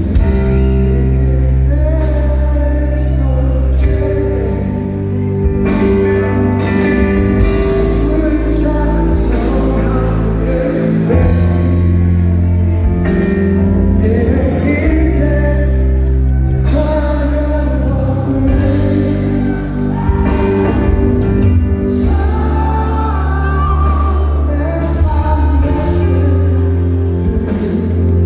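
Rock power trio playing live, with a male lead vocal singing over heavy, sustained bass and the full band.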